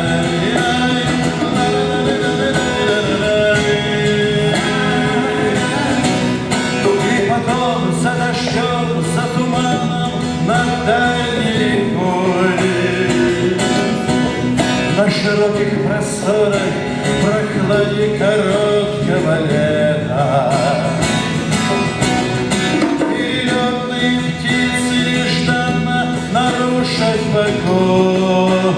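A live song: a voice singing a melody over a plucked and strummed guitar accompaniment, without a break.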